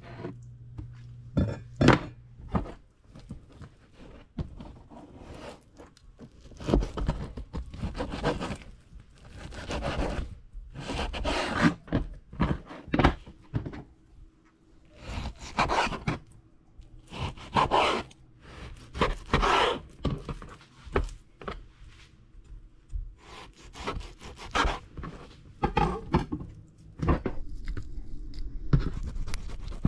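A large kitchen knife chopping and cutting bone-in pork on a wooden cutting board: irregular knocks of the blade against the board in clusters, with some scraping.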